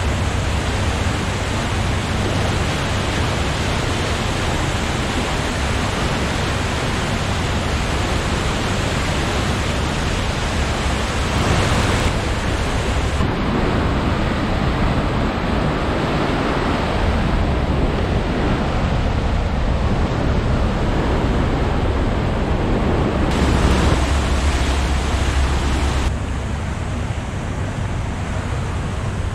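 Turbulent whitewater rushing and churning in the outflow below a hydroelectric powerhouse, a loud steady rush of water. The sound shifts abruptly a few times and drops a little near the end.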